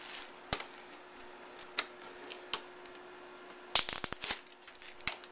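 Hands handling a new inkjet all-in-one printer and its plastic packaging: scattered light clicks and rustles, with a quick run of sharp clicks about four seconds in, over a faint steady hum.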